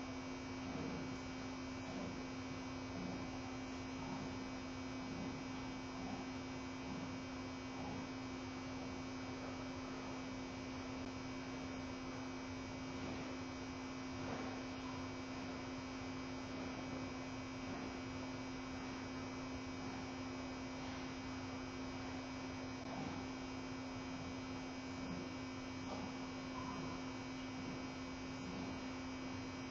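Steady electrical hum on one low pitch, with fainter steady tones above it, unchanging throughout.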